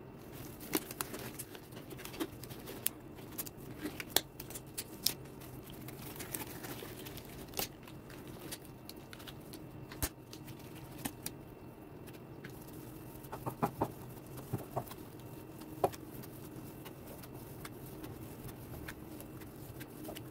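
Kitchen handling noises: scattered light clicks and taps of hands working at a metal mixing bowl and dishes, and latex gloves being pulled on, over a low steady hum.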